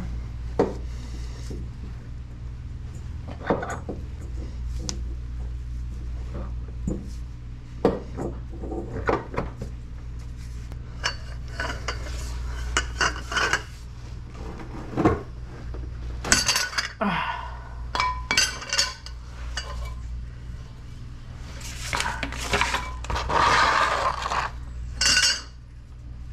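Hand tools clinking and knocking on metal at a car's transmission case: a socket and long-handled wrench being fitted to and worked on the transmission drain plug. There are irregular sharp clicks and clanks, busier in the second half, over a steady low hum.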